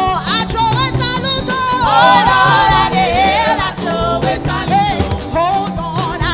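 Gospel song sung live by a vocal group, several voices together, over instrumental backing with a steady beat.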